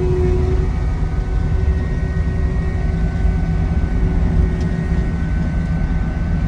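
Heavy equipment's diesel engine running steadily: a loud low rumble with a faint steady whine above it.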